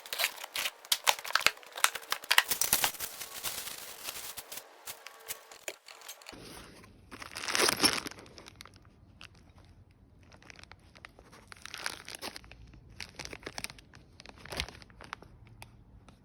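Packaging being unwrapped: dense crinkling and tearing for about six seconds, then one louder rustle and scattered light clicks and taps.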